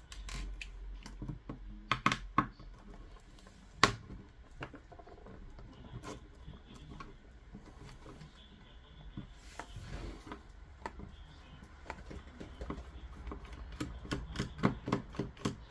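Flat screwdriver clicking and scraping on pin-centre security Torx screws and the plastic casing of a Bose SoundLink Color II speaker being taken apart. There is a sharp click about four seconds in and a quick run of clicks near the end.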